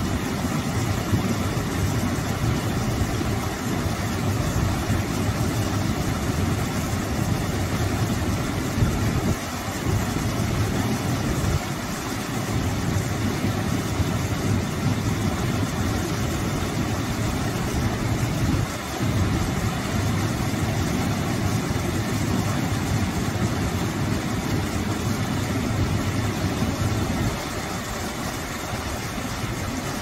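Small waterfall pouring over a rock ledge into a shallow pool: a steady rush and splash of falling water, heavy in deep rumble, a little quieter near the end.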